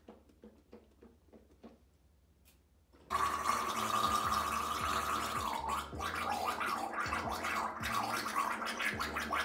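A person gargling Listerine mouthwash. It starts suddenly about three seconds in with a steady pitch that turns wavering after a couple of seconds, over faint background music.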